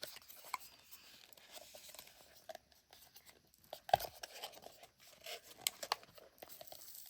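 Product packaging being handled and unwrapped: light rustling and crinkling with scattered small clicks, and one sharper click about four seconds in.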